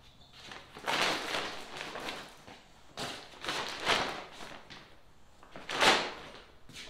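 Several noisy scraping, sliding swishes, each under a second, with the sharpest and loudest about six seconds in: handling noise from parts being worked during assembly.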